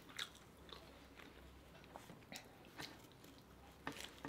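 Faint close-up eating sounds: people biting into and chewing flaky puff-pastry Greggs steak bakes, with a few short crackles and mouth clicks about two, two and a half, three and four seconds in.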